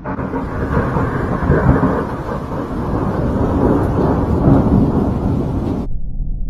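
Thunder rumbling, a loud and uneven rolling noise. Near the end the brighter part of the sound cuts off suddenly, leaving a duller low rumble.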